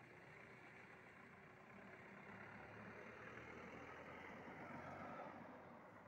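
Faint engine noise, a low hum under a rushing sound, swelling gradually to a peak about five seconds in and then easing, like a distant vehicle passing.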